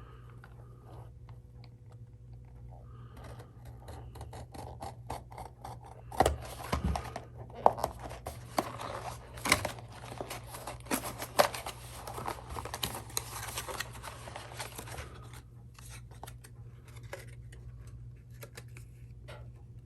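Packaging of a guitar kill switch kit being opened by hand: a busy run of scraping, clicking and tearing sounds, loudest in the middle stretch, over a steady low hum.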